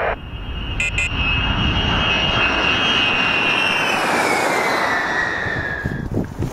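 Boeing B-52H Stratofortress passing low overhead on approach: the roar of its eight TF33 turbofan engines with a high whine that drops steadily in pitch from about four seconds in as the bomber goes past.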